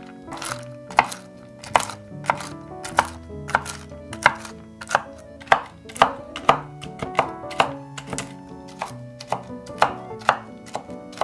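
Chef's knife chopping mixed nuts (walnuts, almonds, hazelnuts) on a wooden cutting board, a sharp chop about twice a second. Quiet background music runs underneath.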